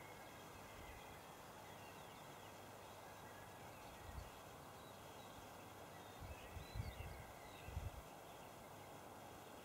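Quiet forest ambience: faint bird chirps over a steady hiss, with a few short low rumbles about four seconds in and again between six and eight seconds in.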